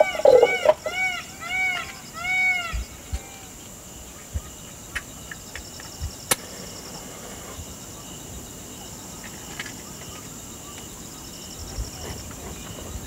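An animal calls in a quick series of rising-and-falling notes, about three a second, which stops about three seconds in. After that, insects chirp in short high pulses over a faint steady hiss, with a single sharp click about six seconds in.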